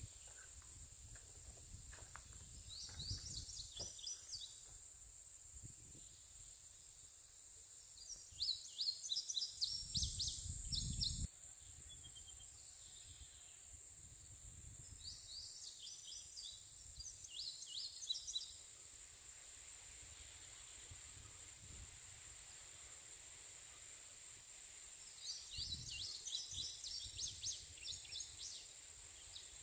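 Rural creekside summer ambience: a steady high-pitched insect drone, with four bouts of rapid high chirping about every seven seconds. Low wind rumble on the microphone comes and goes, strongest around ten seconds in.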